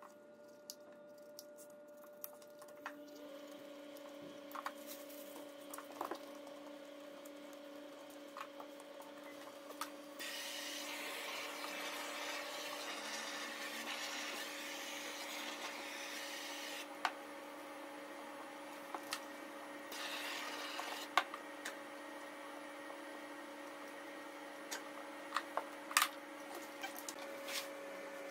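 Hands working self-adhesive waterproofing membrane sheet: scattered scissor snips and taps, and a stretch of scraping or rubbing from about ten seconds in for around seven seconds as a patch is pressed down, over a steady faint hum.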